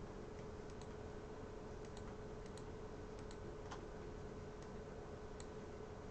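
Faint, irregular clicks of a computer keyboard and mouse, about a dozen, over a steady low hiss and a faint hum.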